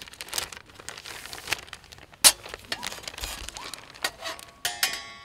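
Packaging crinkling and rustling as parts are unwrapped and handled, with one sharp knock about two seconds in.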